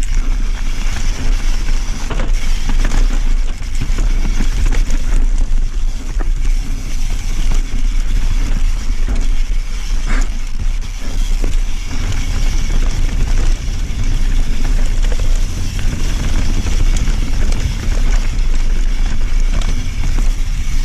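Mountain bike ridden fast downhill on a dirt trail: tyres rolling and the bike rattling and clattering over bumps, under steady wind rush on an action camera's microphone.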